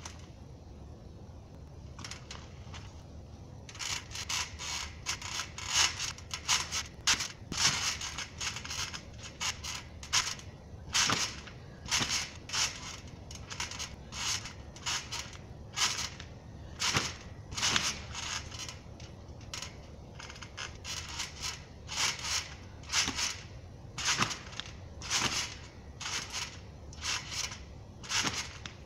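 Trampoline's coil springs and jumping mat creaking with each bounce: a short rasp that repeats about once or twice a second, starting a few seconds in.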